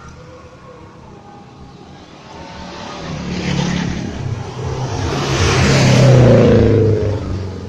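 A motor vehicle passing by on the road, its engine growing louder from about three seconds in, loudest near the end, its note dropping in pitch as it goes past.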